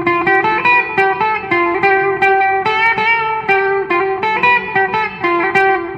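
Electric guitar played through a Marshall CODE 100 amp and 4x12 cabinet with a delay preset: a steady run of picked single notes, about three to four a second, with an echoey repeat on them.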